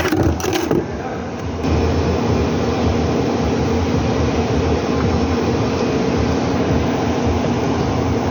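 Hyundai HR light truck's rear differential growling, a steady loud drone with a hum, growing louder about a second and a half in. It is the sign of a broken tooth on the pinion and ring gear.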